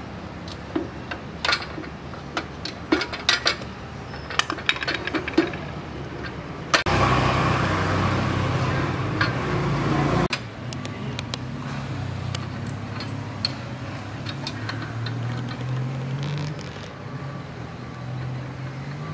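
Light metal clinks and taps of tools, bolts and brackets being handled on a motorcycle, scattered through the first seven seconds. After that a motor vehicle's engine hum runs underneath, loudest for about three seconds near the middle and then steadier with a pitch that rises and falls.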